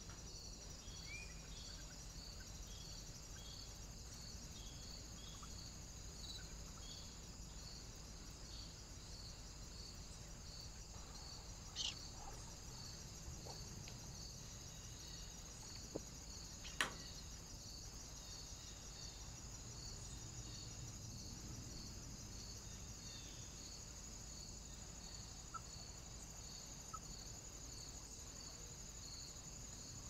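Faint, steady high-pitched insect chirping in an even repeating rhythm, typical of crickets or bush-crickets, with a few sharp clicks.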